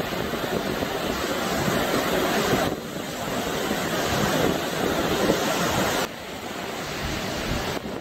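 Water rushing through the open spillway gates of a dam and churning in the river below, a steady rush of noise. It drops suddenly in level about a third of the way in and again about three quarters of the way in.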